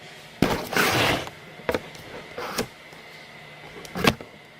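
Close handling noise: a brief rustling scrape, then a few sharp clicks and knocks.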